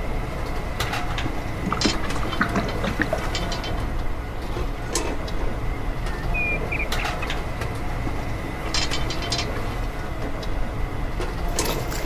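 Steady low rumble, with scattered small clicks and taps as a toy metal bucket of wet cement is lifted and poured by hand, and one short high chirp about six seconds in.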